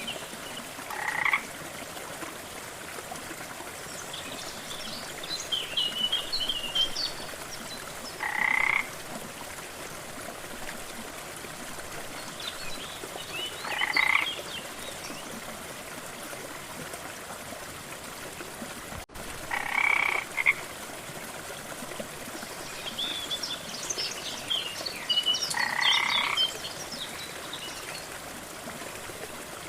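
Frogs calling over the steady rush of a waterfall. A croak about half a second long comes every five to six seconds, with spells of quicker, higher chirping in between.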